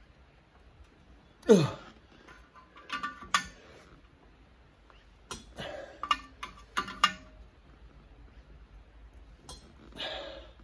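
Metal clinking and clicking from a homemade cylinder-liner puller being worked on the threaded rod, drawing a tight liner out of a Case 188D diesel block: the liner is stuck hard and needs more force than the others. About a second and a half in comes the loudest sound, short and falling sharply in pitch.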